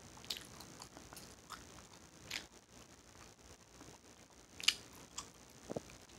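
Mouth chewing Hubba Bubba bubble gum: irregular sharp, wet clicks and smacks of the gum, the loudest about three-quarters of the way through.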